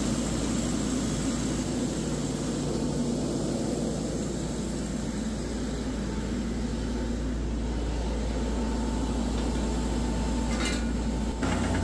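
Truck-mounted drill rig's diesel engine running at a steady speed, with a couple of short knocks near the end.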